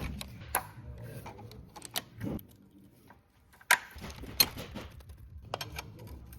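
Tools and metal parts clicking and tapping as a BMW double VANOS unit is worked on by hand: irregular single clicks, the two sharpest a little past the middle.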